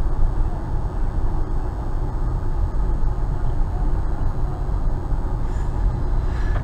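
Steady road and engine noise inside a moving car's cabin: a low, even rumble.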